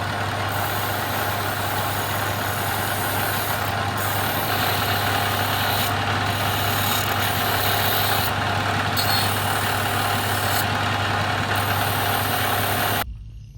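A power tool running steadily, with a low hum underneath, cutting off suddenly near the end.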